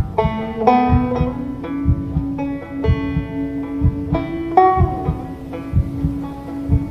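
Slow banjo picking: single plucked notes, a fresh one about every half second, each left to ring out.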